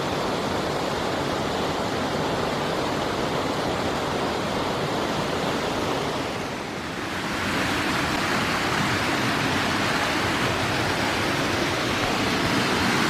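Steady rush of a waterfall's falling water. It dips slightly about six seconds in, then returns a little louder and brighter.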